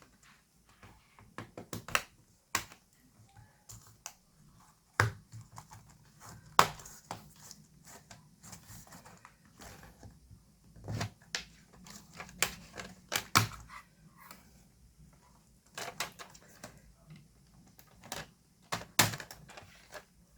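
Plastic keyboard trim of a Dell Latitude E6430 laptop being pried loose and handled: irregular sharp clicks and snaps, a few louder ones, with quiet gaps in between.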